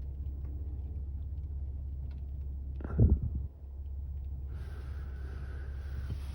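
Low steady rumble of a vehicle's idling engine heard inside the cabin, with a short grunt about three seconds in. A steady hiss sets in a little past halfway.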